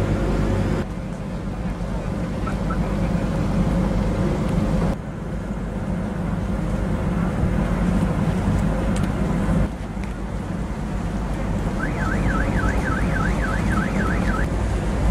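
Steady low rumble of an approaching tugboat's engine with wind and water, its level dropping abruptly a few times. Near the end a high warbling tone rises and falls about three times a second for a couple of seconds.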